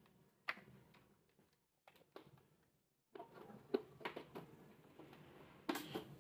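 A few faint, short clicks and knocks spread out, the loudest pair near the end: a hand handling a home solar inverter's plastic casing and switches.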